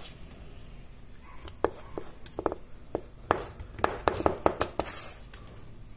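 Hands pinching and pressing soft dough around the rim of a round metal baking pan, with a run of light, irregular clicks and taps as the fingers knock against the pan.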